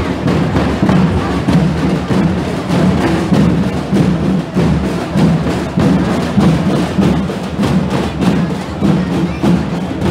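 Marching drums beating a repeating rhythm of many quick hits, with the din of a crowd beneath.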